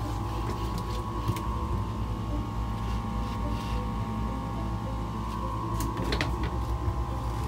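A steady low mechanical hum with a pair of faint steady tones above it. A few light clicks and taps break in, with a short cluster of them about six seconds in.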